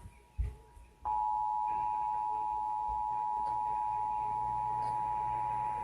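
Emergency Alert System attention signal for a National Periodic Test: a steady two-tone alarm (853 and 960 Hz) that starts about a second in. A short knock comes just before it.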